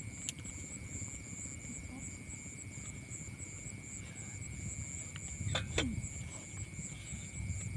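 Night-time outdoor ambience: a steady low rumble of wind on the microphone under a continuous high, pulsing insect trill. About two thirds through there is a short clatter of cookware at the stove.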